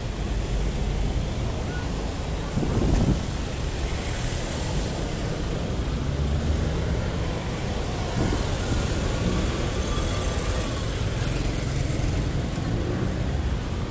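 City street traffic: cars, an SUV and a motorcycle driving past close by, a steady rumble of engines and tyres with a louder swell about three seconds in.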